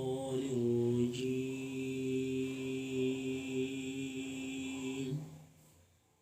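A male reciter's unaccompanied voice holding one long, slightly wavering note in Qur'anic recitation style (tilawah in the Bayati maqam), which dies away about five seconds in.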